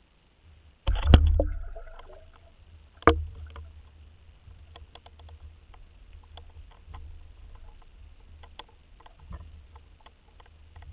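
Pike striking dead-bait fish at the water surface, heard from underwater: a loud sudden splash about a second in, a second sharp smack about two seconds later, then scattered faint clicks.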